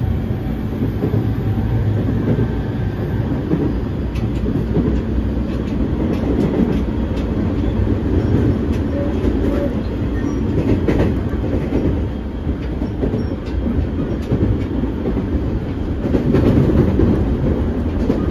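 JR 209-series 500-subseries electric train running, heard from inside the passenger car: a steady low rumble of wheels on rail, with scattered clicks from rail joints.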